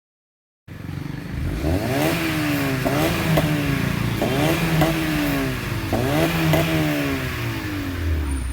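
Honda Civic FD's stock R18 1.8-litre four-cylinder revved through a chambered aftermarket muffler: after a moment of silence, a series of quick throttle blips, mostly in pairs, each pitch rising sharply and falling back toward idle.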